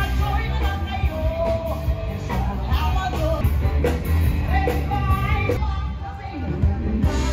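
Live band playing rock music, with a singer over a steady, heavy bass.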